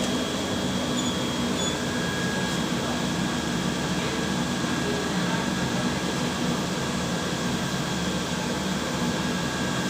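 Miura EX 500 GH steam boiler running after its combustion switch is raised: a steady mechanical drone from its blower, with a faint steady high whine over it.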